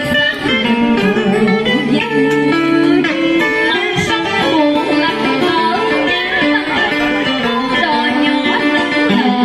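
Instrumental music led by a plucked guitar playing a melody over sustained lower notes.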